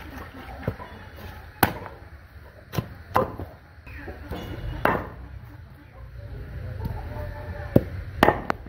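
Heavy broad-bladed knife chopping through fish onto a cutting surface: about half a dozen sharp knocks at uneven intervals.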